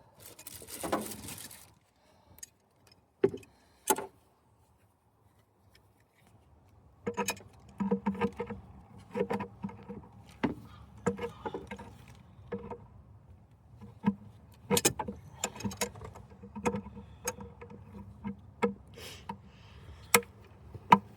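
Hand tools and metal engine parts clinking and knocking irregularly while a hose or fitting is worked into place. A brief rustle comes near the start and two sharp clicks follow, then the knocks come thick and fast from about a third of the way in.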